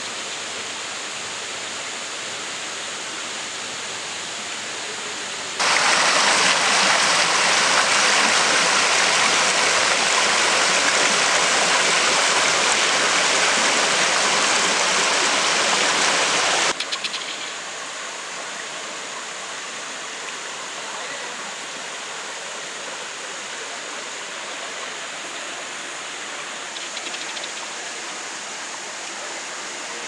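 Steady rushing of stream water running over rocks. About five seconds in it turns abruptly louder and fuller for about eleven seconds, then drops back just as suddenly.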